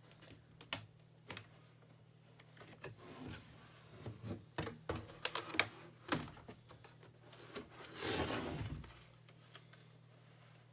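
Scattered plastic clicks and knocks from a Logitech ERGO K860 split keyboard being handled and taken apart at its palm rest, bunching up in the middle, with a brief scraping rub about eight seconds in.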